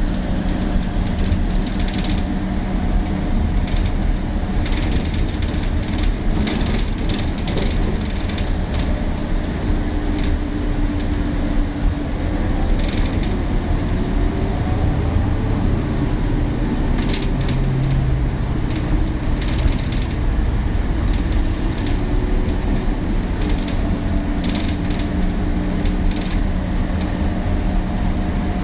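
Inside an old bus while it drives: a steady engine and road rumble with a low hum, and frequent short creaks and rattles from the bus body.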